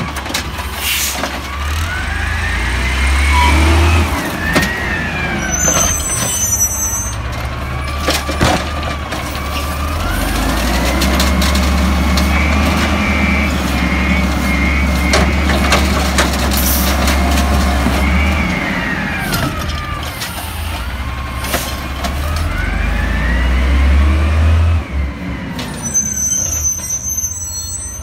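Peterbilt 320 garbage truck's natural-gas engine revving up and down in several long surges to drive the Amrep automated side loader's hydraulic arm as it dumps a cart, with a few sharp clanks from the arm and cart. Near the end the truck pulls away.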